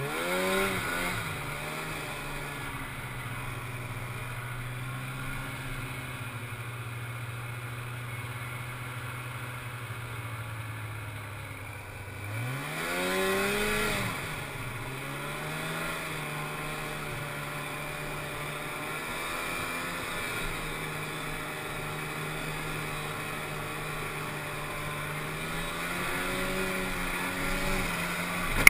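Polaris Indy 340 snowmobile's two-stroke engine running under throttle. It revs up at the start and holds a steady note, eases off about twelve seconds in, then revs sharply back up (the loudest moment), settles again and climbs once more near the end.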